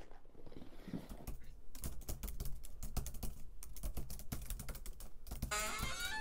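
Fast typing on a computer keyboard: a rapid, uneven run of key clicks. Near the end, a rising, wavering tone sets in.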